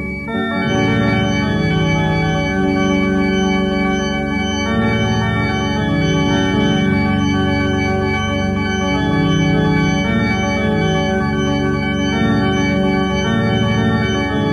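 Music: slow, sustained organ-like keyboard chords, shifting to a new chord just after the start and then held.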